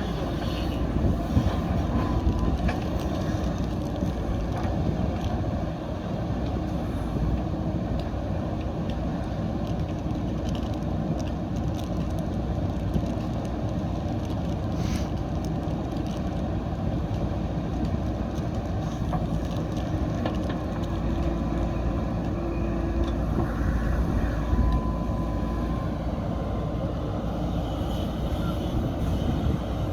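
JCB backhoe loader's diesel engine running steadily, with a few short clicks.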